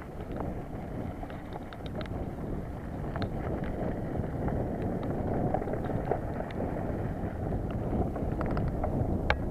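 Mountain bike descending a rough dirt and rock trail: a steady rush of wind on the action camera's microphone and tyre noise, with many scattered rattles and clicks from the bike jolting over the bumps.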